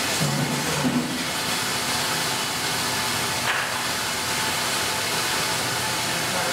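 Semi-automatic cask washer running a wash cycle: a steady hiss of its wash jets spraying inside the two upturned casks.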